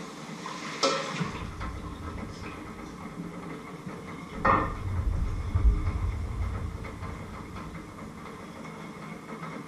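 Kitchen handling noise: a sharp clack about a second in and a second one about four and a half seconds in, as dishes are handled and a ceramic bowl is set down on a wooden cutting board, each followed by low thudding of movement across the floor.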